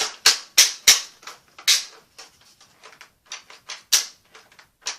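Boomco toy blaster's plastic mechanism clicking and clacking as it is worked: a quick run of sharp clacks in the first two seconds, another loud one about four seconds in, and fainter clicks between.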